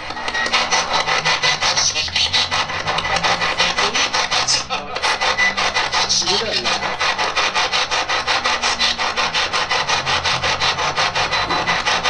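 Radio-sweep spirit box scanning through stations: loud static chopped into rapid, even pulses, about six a second, with brief snatches of gliding radio sound.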